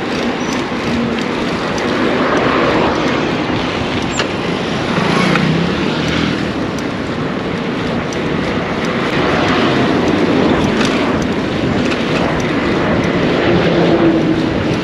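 Wind rushing over the microphone of a camera riding on a moving bicycle, with the engines of passing motor traffic mixed in.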